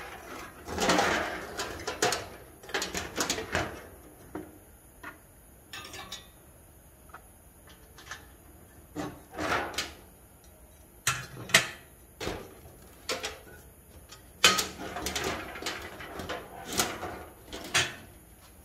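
Metal knocks and clatter of a pressure kerosene stove being handled: its frame and tank bumped and set down on a wooden shelf, and its parts fitted, in irregular clanks with several louder knocks.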